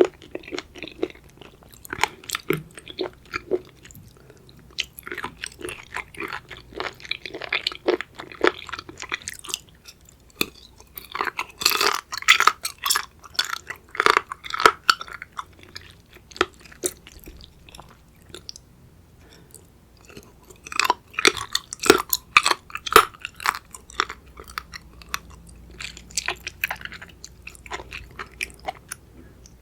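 Close-miked chewing and biting of raw seafood: wet, crunchy chews and sharp crackles in bursts, busiest about a third of the way in and again past two thirds, with quieter chewing between.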